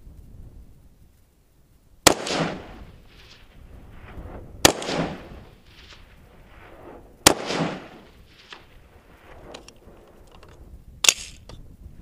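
Three rifle shots from a 5.56 ArmaLite AR-15 (SPR Mod 1), evenly spaced about two and a half seconds apart, each trailing off in an echo. A lighter, sharp click follows near the end.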